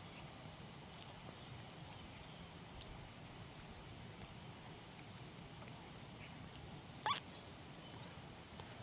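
Faint steady drone of insects, a thin high continuous tone over a quiet riverside hiss. About seven seconds in, a single short squeak cuts through.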